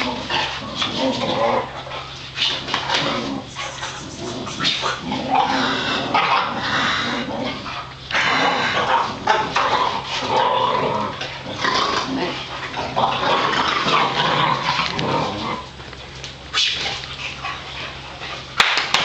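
Several boxer dogs in rough play, barking, whimpering and yipping in a near-continuous racket, mixed with the slaps and pats of a man's hands on them. The smacking sounds hard but is only play.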